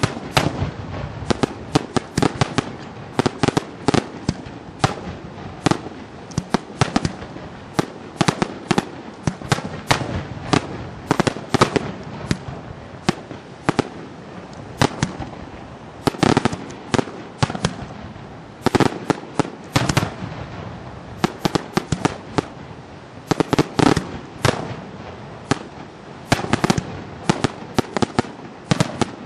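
Aerial fireworks display: a dense, unbroken run of sharp bangs from shells bursting overhead, several a second, with a few short lulls.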